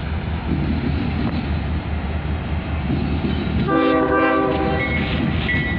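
Union Pacific diesel locomotive approaching with a steady low rumble, sounding one short chord on its air horn about four seconds in, lasting about a second.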